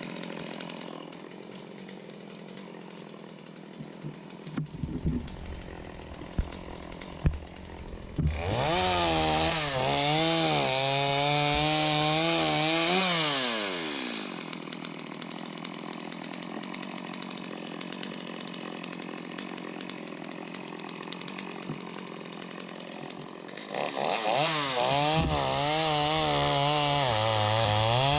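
Chainsaw idling with a few sharp knocks, then revved up and cutting for about five seconds, its pitch sagging and recovering under load; it drops back to idle and revs up cutting again near the end.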